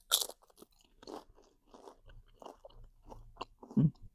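Mouth chewing a bite of corn dip with Hot Cheeto dust: a loud crunchy bite at the start, then steady chewing about twice a second. Near the end comes one short, louder, low sound from the throat.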